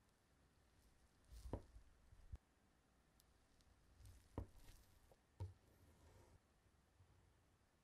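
Knife cutting down through a soft cream-layered tiramisu cake: faint soft squishes as the blade sinks in, with about four light knocks as it meets the cake board. Quiet overall.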